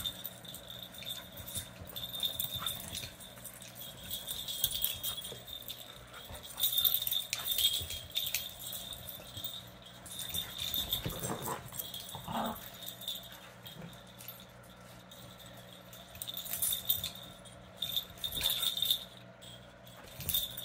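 A corgi and miniature schnauzer puppies play-fighting, with scuffling and collar tags jingling on and off throughout. There are a couple of short dog vocal sounds about halfway through.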